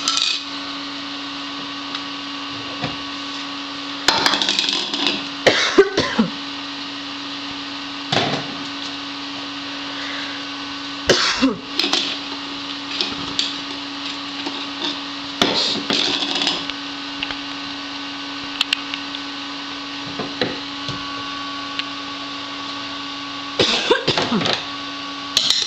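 Scattered knocks and clattering as a toddler bangs and handles small play-kitchen items, in several short bouts, over a steady low hum.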